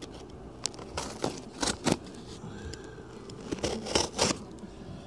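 A mailed package being opened by hand: a string of short scrapes and tearing sounds, with the loudest cluster about four seconds in.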